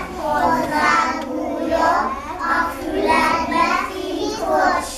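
A group of young children singing together in chorus, in phrases with held notes.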